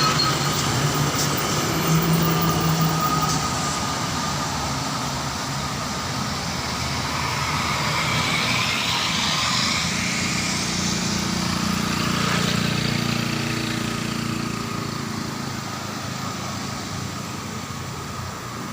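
A heavy road vehicle, a truck or bus, passing by: engine and tyre noise build to a peak about twelve seconds in and then fade as it moves away.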